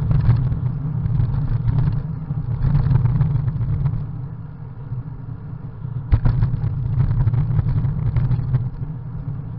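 Wind rumbling over an action camera's microphone on a moving bicycle, an unpitched low rumble that swells and fades in gusts, with a sharp jolt about six seconds in.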